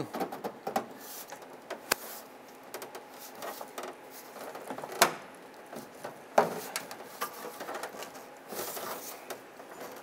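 Ford Explorer's plastic liftgate trim panel being pulled and flexed by gloved hands: low scraping and rustling with a few sharp plastic clicks, the loudest about five and six seconds in.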